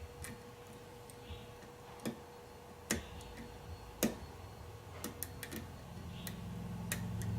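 Small sharp clicks at irregular intervals from a pin tumbler lock being single-pin picked: the pick and the pins clicking in the core. A low rumble builds near the end.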